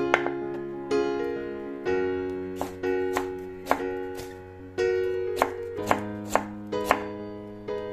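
Chef's knife chopping red bell pepper on a wooden cutting board, a sharp knock of the blade on the board with each cut, about a dozen cuts coming faster in the second half. Soft piano music plays underneath.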